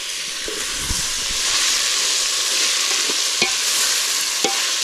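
Onion, garlic and tomato masala sizzling as it fries in oil in a cooking pot, being cooked soft before the chicken is added. A steady sizzle with a few light knocks as it is stirred.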